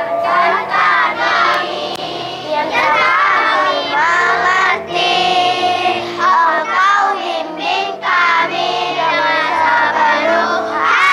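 Children's choir of young schoolgirls singing a farewell song together in unison, phrase by phrase with short breaths between lines.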